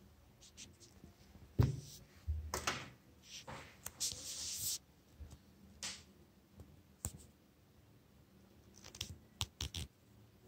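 Handling noise: irregular clicks and knocks, the loudest about a second and a half in, with a brief rustle around four seconds in and a run of quick clicks near the end.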